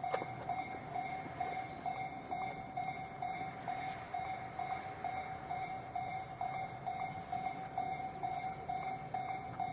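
Japanese railway level-crossing warning bell ringing, its electronic clang repeating evenly and steadily.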